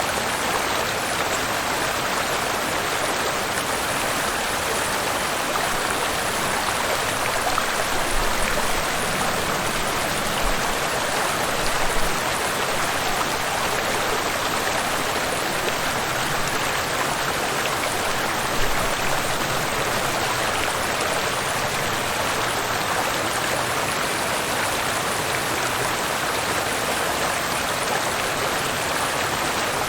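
Waterfall and river water rushing in a steady, even stream of noise, with a few brief low bumps in the middle.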